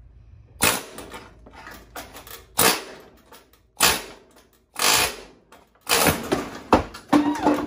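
Pneumatic hand tool on an air hose, triggered in short bursts against the steel of a rusty, cut-out car rocker panel: about six bursts, the last few coming close together near the end.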